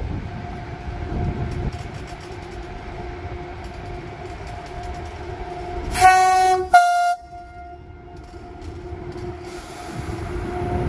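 Train at a station with a steady humming tone and running rumble. About six seconds in, its horn sounds two short blasts, the first a little longer.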